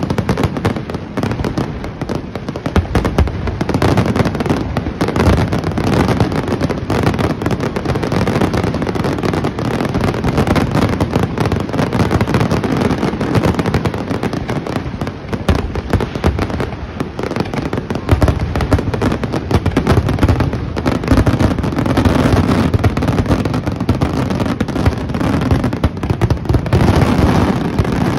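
Professional fireworks finale: aerial shells bursting in rapid, overlapping succession, a dense barrage of booms and crackles with no gaps between them.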